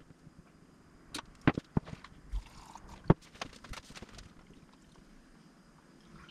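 A series of light knocks and clicks as metal primer cans and a plastic mixing cup are handled and set down on a wooden workbench while two-part primer is measured out. The sounds are scattered over the first four seconds or so, then it goes quiet.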